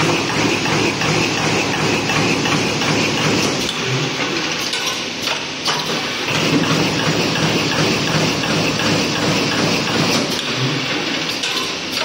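Automatic playing-card die-punching machine running steadily, its punch head striking in a quick, even rhythm as it cuts printed card sheets into cards.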